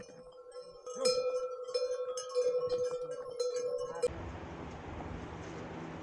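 Bells on a passing yak pack train jangling, many overlapping ringing strikes that grow louder about a second in as the animals come close. About four seconds in this cuts off abruptly to a steady rushing noise.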